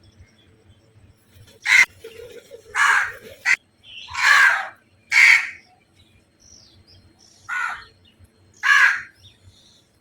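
Crows cawing: about seven short, harsh caws at uneven intervals.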